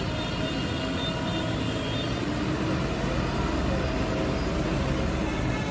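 JCB backhoe loader's diesel engine running steadily as the machine manoeuvres on site.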